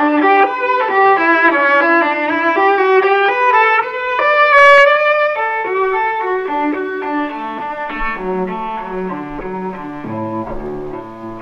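Background music of bowed strings led by a violin, playing a melody of shifting notes that grows quieter in the second half.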